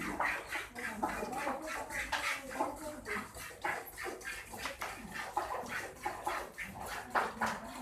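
A cow being milked by hand: quick, rhythmic squirts of milk, about three a second.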